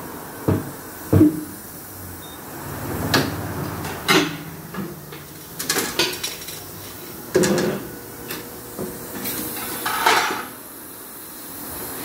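Irregular metal clanks and knocks of tyre-changing work at a tyre changer and wheel balancer, with a short hiss near ten seconds in.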